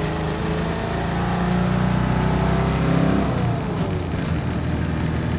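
Air-cooled flat-four engine of an early-bay VW T2 campervan heard from inside the cabin while driving, its note rising slowly as it pulls and then falling away about three seconds in.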